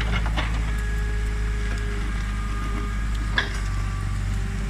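Old mini excavator's diesel engine running steadily as it works, with faint steady whines above the engine hum and a single sharp knock about three and a half seconds in.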